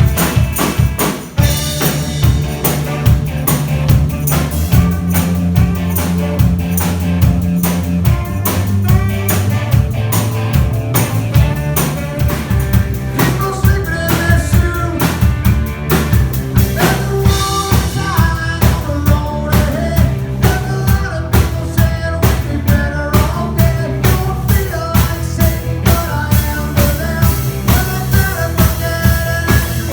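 Live band playing an instrumental passage: drum kit keeping a steady beat with bass drum and rimshots under a bass line, with a melody coming in about a third of the way through.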